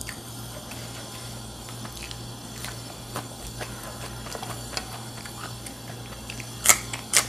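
Close-up eating sounds: chewing with many small clicks, then two sharp crunches near the end as a raw green chili is bitten into. A steady low hum runs underneath.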